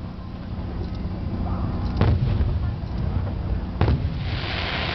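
Aerial firework shells bursting, with two loud booms about two seconds apart and fainter pops between. A crackling hiss sets in near the end.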